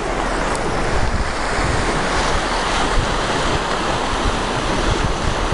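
Sea surf washing steadily on the shore, with wind buffeting the microphone in gusty low rumbles.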